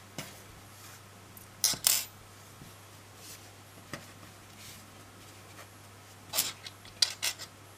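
Handling noises at a wooden tabletop: a metal yarn needle set down and yarn ends pulled and worked between the fingers, heard as a few brief scrapes and clicks about two seconds in and again in a short cluster near the end.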